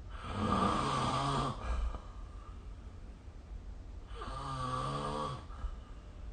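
A sleeping person snoring: two snores about four seconds apart, each lasting a little over a second.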